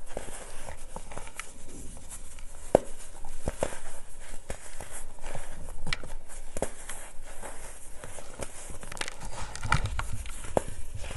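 Hands crushing chunks of compressed baking soda and letting the powder sift down into a plastic tub: soft crunching and crumbling with irregular little snaps and clicks over a fine hiss of falling powder. A sharper snap comes a few seconds in.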